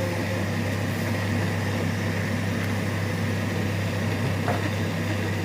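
A steady motor hum running without change, with a low droning tone and a noisy rush above it.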